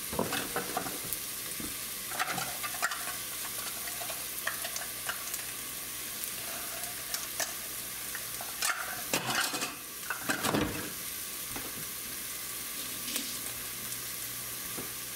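Shredded meat, bell peppers, onions and mushrooms sizzling in oil in a pot on a stovetop, a steady frying hiss. Scattered light clicks and knocks come through it, most around two-thirds of the way in.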